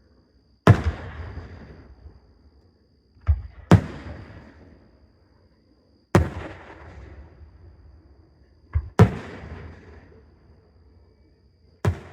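Aerial fireworks shells bursting: five sharp booms about every two to three seconds, each dying away over a second or two, and two of them preceded by a smaller pop.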